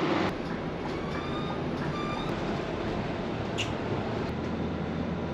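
Steady engine and road noise inside a moving articulated city bus, with a faint rising whine about one to two seconds in.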